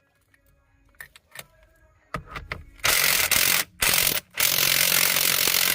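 A few light clicks, then a power impact wrench runs on the 17 mm steering-wheel nut, tightening it down in loud bursts with two brief stops.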